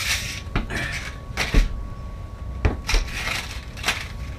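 Plastic blister packs of fishing lures being handled and sorted, crackling as they are picked up and clicking as they are dropped onto the pile and the teak deck, about seven sharp clicks over four seconds. A faint steady high tone sits underneath.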